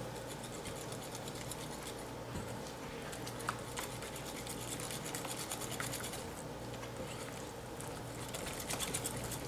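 Tempura batter of flour, eggs and water being mixed by hand in a bowl: a steady, fast run of soft ticks and scrapes as the utensil works through the batter.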